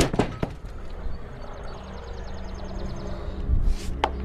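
A couple of sharp knocks at the start, over the steady low hum of the sawmill's engine running at idle. A faint, fast ticking comes in the middle, and a louder knock with a sharp click comes near the end.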